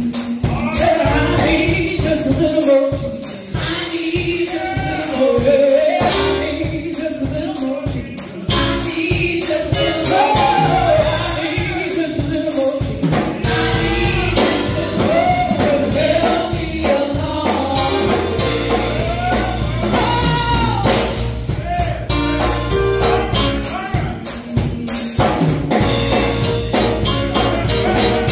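Church praise team singing a gospel song with a live band: several voices in harmony over organ, keyboard and drum kit.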